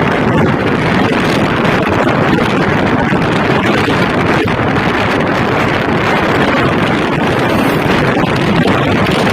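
Wind rushing over the microphone of a moving motorcycle, a steady loud roar with engine and road noise underneath.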